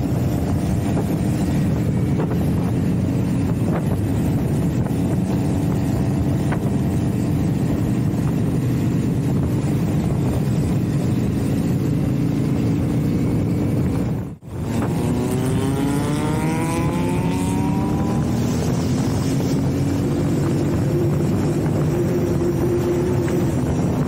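Motorcycle engine running on the move, with wind and road noise, heard from the rider's own bike. About two-thirds of the way in the sound drops out for a split second, then the engine pitch rises as the bike accelerates before settling again.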